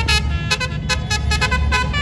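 A bus's telolet basuri horn playing a quick tune of short notes, one after another, over a low steady rumble.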